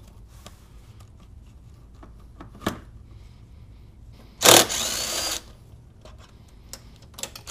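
Cordless drill/driver running in a burst of about a second, its motor whine rising and then falling, as it backs out a 10 mm air box fastener. A single sharp click comes a couple of seconds before.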